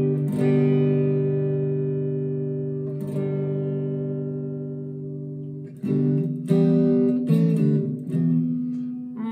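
Harley Benton SC-450 Plus Les Paul-style electric guitar played through an amp's clean channel while its tone control is tested. A chord is strummed and left to ring and fade, strummed again about three seconds in, then from about six seconds in a quicker run of strummed chords and picked notes follows.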